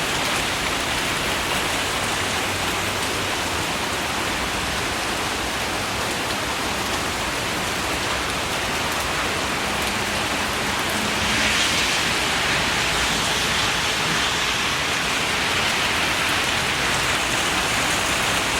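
Heavy downpour: steady rain falling hard and splashing on surfaces, growing a little heavier about two-thirds of the way through.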